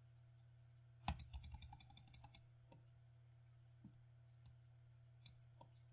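Faint computer mouse button clicks over a low steady hum: a quick run of clicks about a second in, then a few scattered single clicks.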